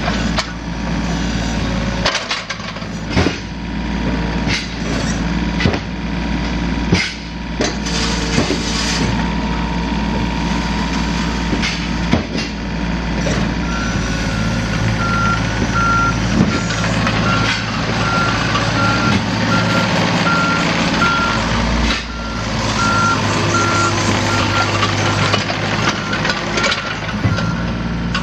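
2014 John Deere 27D mini excavator running, its Yanmar 3TNV88 diesel humming steadily under many sharp knocks and clanks from the working machine. About halfway through, a warning alarm starts beeping at an even pace and keeps on to the end.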